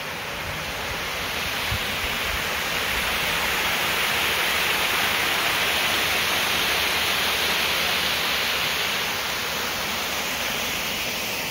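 Coal Creek's water rushing and splashing over a small rocky cascade, a steady hiss that grows louder over the first few seconds and eases a little near the end.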